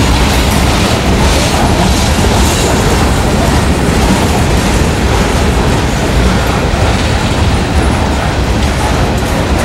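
Norfolk Southern freight train's covered hopper cars rolling past: a loud, steady rumble of steel wheels on the rails.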